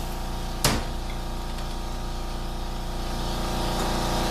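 Steady machine hum in the workshop, with a single sharp metallic click about two-thirds of a second in, from hand tools at work removing the output speed sensor from a 4L60E transmission case.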